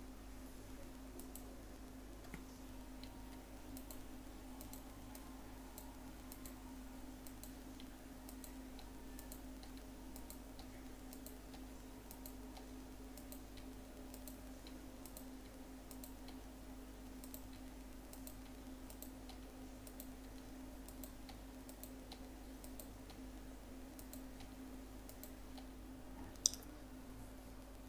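Faint room tone with a steady low electrical hum and scattered soft clicks a second or two apart. One sharper click comes near the end.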